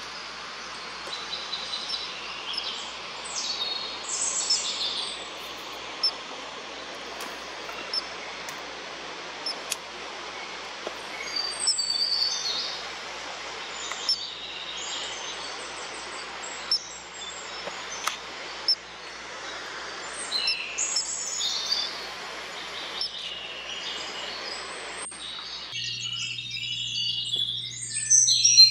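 Small birds chirping and calling, many short, high calls scattered throughout, over a steady rushing background noise that cuts off abruptly near the end.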